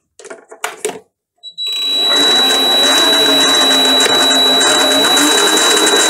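A few short clicks, then a Chinese variable-speed mini lathe starts about a second and a half in and runs steadily, its motor and power-feed gear train giving a steady high-pitched whine over a low hum.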